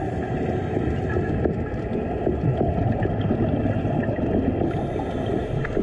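Muffled underwater noise recorded beneath the sea: a dense, steady low rumble of water with faint scattered crackles, likely from the diver's scuba bubbles.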